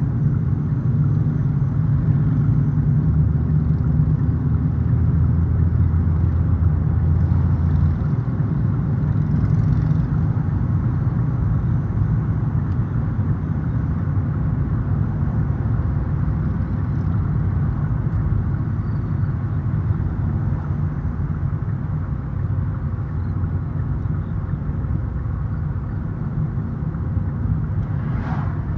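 Steady rumble of a moving car's engine and tyres on the road, heard from inside the car, with a low drone that is heavier for the first several seconds. Two brief sharp sounds near the end.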